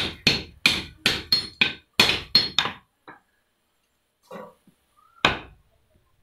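Hammer blows on red-hot iron on a blacksmith's anvil: a quick run of about ten ringing metal strikes, roughly three a second, then a pause and one more strike near the end.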